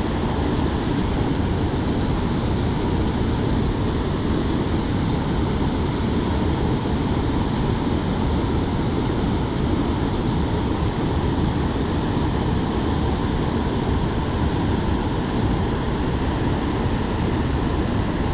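Steady rush of stream water pouring out below a dam's spill gates and running over the rocks.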